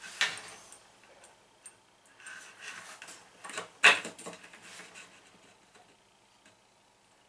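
Light taps and small knocks from a finger pressing stainless-steel LED touch switches on a plywood cabinet, with one sharper knock about four seconds in. The touch switches themselves make no click.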